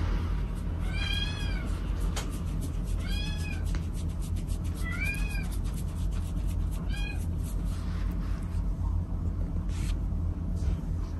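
A cat meowing four times, about two seconds apart, each meow rising and then falling in pitch and the last one shorter, over a steady low rumble.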